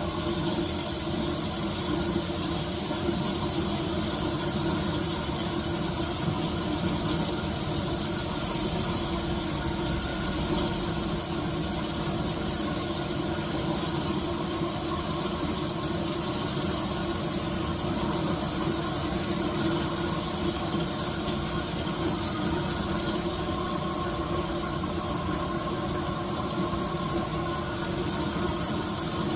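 A steady engine-like hum with an even hiss over it.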